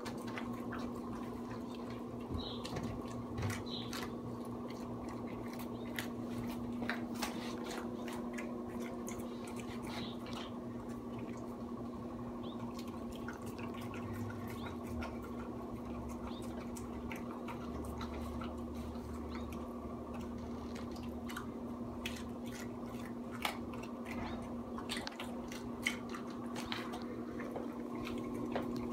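Basenji–Pharaoh Hound mix dog eating from a bowl, with many short crunches and wet smacks as he chews raw broccoli and oily ground turkey. A steady low hum runs underneath.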